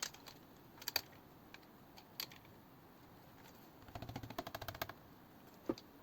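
Faint, scattered clicks and taps of small hard PC parts being handled and fitted, with a quick run of clicking about four seconds in.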